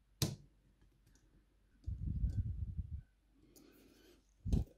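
Hands fitting a metal bracket onto a cassette deck's tape mechanism: a sharp click just after the start, about a second of low scraping and handling noise around two seconds in, and a short dull knock near the end.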